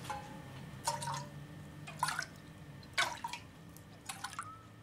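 Slow dripping water: a drop plinks about once a second, four times in all.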